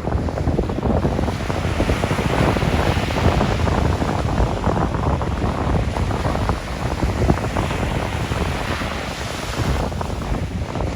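Sea waves washing ashore, the hiss of the surf swelling twice, with wind buffeting the microphone as a low rumble.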